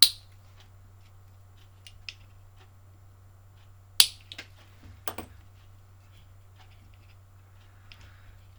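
Sharp clicks and small taps of tools and parts being handled at the workbench, over a low steady hum. The two loudest clicks come at the start and about four seconds in, with softer ticks between and after.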